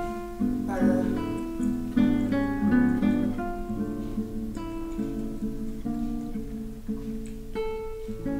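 Background music: an acoustic guitar playing a melody of plucked notes.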